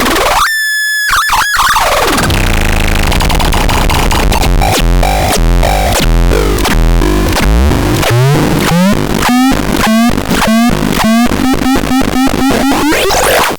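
Synthesizer making harsh, noisy electronic tones. A short high pitched tone sounds about half a second in, followed by buzzing noise. From about the middle on comes a run of quick rising sweeps that speed up, over a low note that climbs and then holds.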